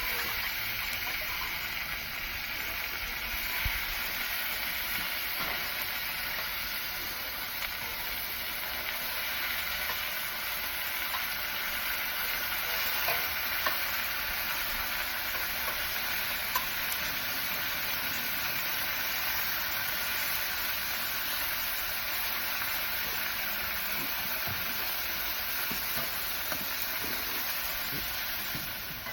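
Bacon-wrapped sausage meat burgers sizzling steadily on a flat-top Blackstone griddle, with a few faint ticks.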